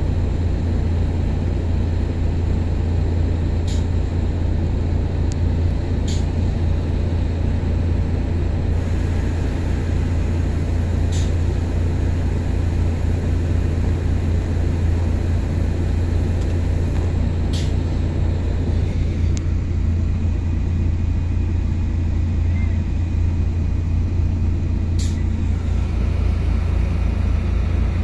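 Diesel engine of heavy equipment running steadily close by, a deep even rumble with a fast low pulse and no revving. A few short sharp clicks or clanks sound over it.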